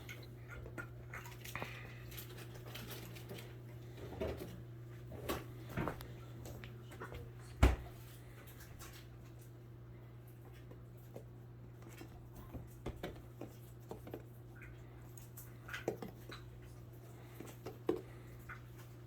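Kittens playing with a wand toy: scattered soft taps and thumps of paws, pounces and the toy, with one loud thump about 8 seconds in. A steady low hum runs underneath.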